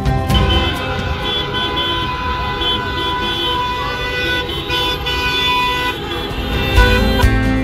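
Car horns honking on and off, several at once, over street traffic: drivers celebrating Morocco's World Cup win.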